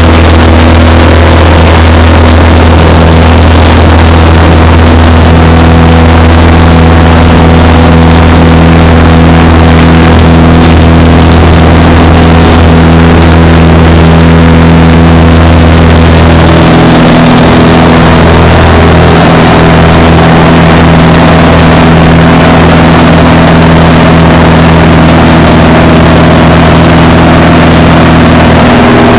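Cessna 180 floatplane's six-cylinder piston engine and propeller running very loud and steady, the engine note shifting about seventeen seconds in.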